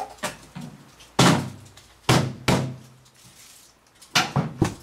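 Microwave oven door being slammed shut again and again without latching: a series of sharp bangs, the loudest about one and two seconds in, then three quick ones near the end.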